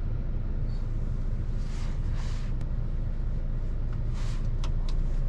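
Low, steady rumble of an MG GT's 1.5-litre turbo engine and tyres, heard from inside the cabin as the car moves off at low speed. A few brief hissing swishes and a couple of light clicks near the end.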